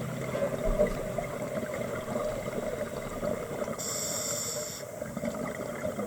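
Scuba diver breathing through a regulator underwater: an irregular bubbling runs throughout, and a hissing inhale lasts about a second, about four seconds in.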